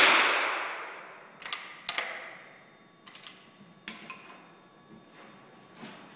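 Rifle shot ringing out in a reverberant indoor shooting range, its echo fading over about a second and a half. Then a string of sharp clicks and knocks follows, from the rifle and gear being handled.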